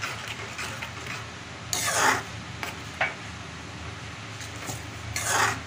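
A metal spoon stirring milk and sugar in a metal kadhai. The spoon scrapes loudly along the pan about two seconds in and again near the end, with a short knock around three seconds.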